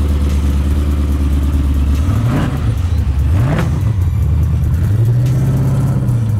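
Naturally aspirated LSX V8 in a Chevrolet Caprice idling, then blipped twice in quick rises and falls about two and a half and three and a half seconds in. Near the end it revs up and holds as the car pulls away.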